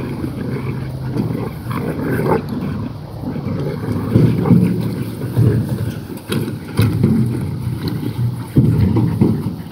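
A pack of black mouth cur hog dogs wrestling an overturned plastic wheelbarrow: a rough, rumbling scuffle as the tub and wooden handles are dragged and tossed on the grass, with a few sharp knocks of the wheelbarrow being hit and flipped.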